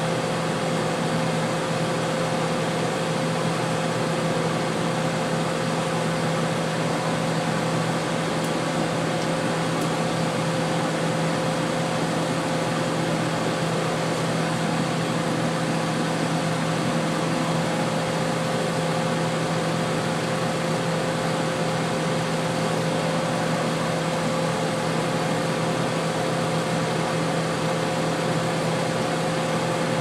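Whirlpool-built Hampton Bay 25-pint dehumidifier running: its fan blowing with a steady hum, the reciprocating compressor very quiet beneath it. The compressor has just come under load and is still building head pressure after long disuse.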